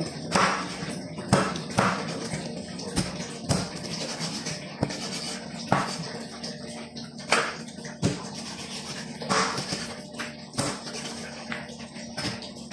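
Meat cleaver chopping raw chicken on the bone against a plastic cutting board: about a dozen sharp, irregular chops, roughly one a second, over a steady low hum.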